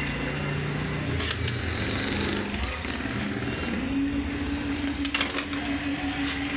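A few short metallic clicks as the sewing machine's shuttle race ring and shuttle parts are fitted back by hand, over a steady background hum.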